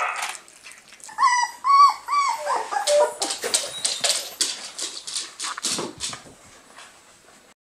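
Four-week-old whippet puppy whimpering: three short, high whines in quick succession about a second in, followed by a string of short, sharp sounds that fade out near the end.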